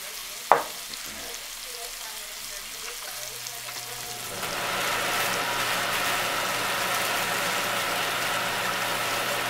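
Chicken breasts, snap peas and lime halves sizzling in butter in a nonstick frying pan. A single sharp click comes about half a second in. About four seconds in, a louder steady hiss sets in over a low hum.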